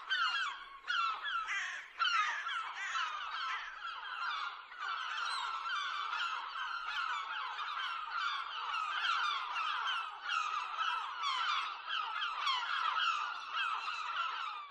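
A flock of birds calling continuously, with many short calls overlapping into a steady din.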